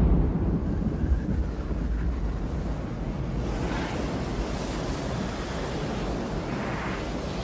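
Film sound effects of an asteroid impact and the wave that follows it: a steady deep rumble with a rushing noise like wind and surf.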